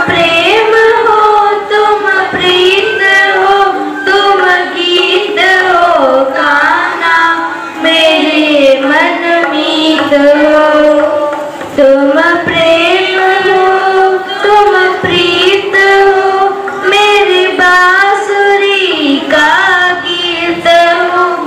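A group of young girls singing a song together in unison, accompanied by a harmonium that holds a steady tone under the melody.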